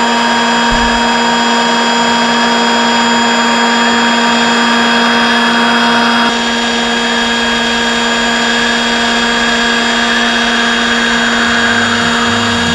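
Electric motors of a 1:15-scale RC Bucher CityFant street sweeper running steadily, with a high motor whine over a rushing hiss as its brush and suction run. The sound drops slightly in level about halfway through.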